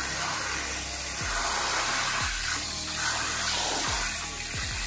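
Hot water spraying steadily from an ECOHEAD LED shampoo-bowl sprayer head into the shampoo bowl.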